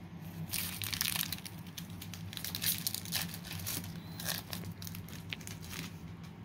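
Foil Yu-Gi-Oh! booster pack wrapper crinkling and being torn open, a dense irregular run of crackles and rustles.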